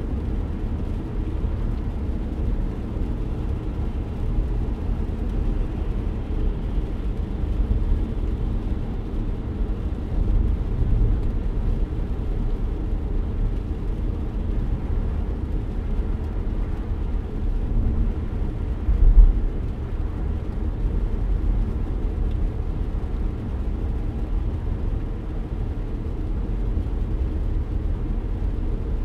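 Steady low rumble of a car driving, heard from inside the cabin, with one short low thump about two-thirds of the way through.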